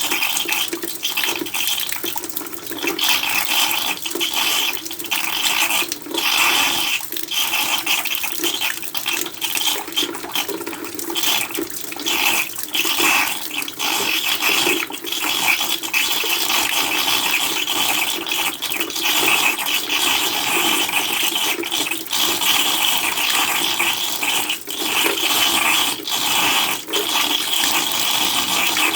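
Rainwater pouring and splashing into a black plastic container, a steady rushing splash that wavers unevenly in loudness.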